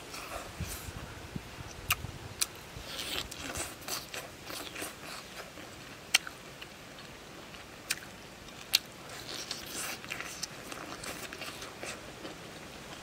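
A person chewing food with the mouth close to the microphone: wet mouth sounds and soft crunching, broken by a handful of sharp lip-smack clicks.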